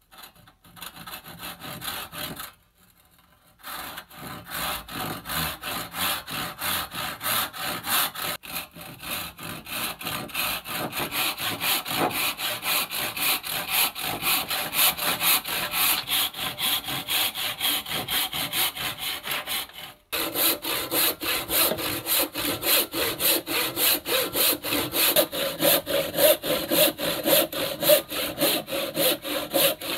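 Handsaw cutting through a block of wood in steady back-and-forth strokes, about two a second. There is a short pause near the start and an abrupt break about two-thirds of the way through, after which the strokes carry a lower ringing tone.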